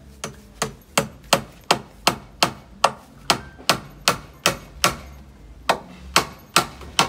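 Hammer driving nails into the timber of a wooden step, struck in a steady rhythm of about two and a half blows a second.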